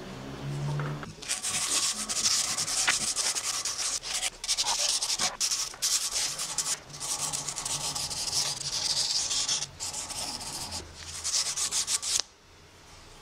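A strip of abrasive cloth pulled back and forth around the steel head of a ball peen hammer, shoeshine-style, sanding its face: a rapid rasping scrape of grit on metal in quick strokes with a few short breaks. It starts about a second in and stops about a second before the end.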